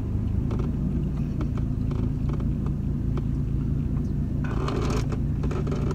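Steady low rumble of a car's engine and road noise inside the cabin while driving, with scattered light clicks and a brief burst of noise about four and a half seconds in.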